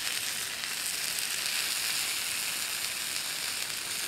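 Small pan of noodles and vegetables sizzling steadily over campfire coals.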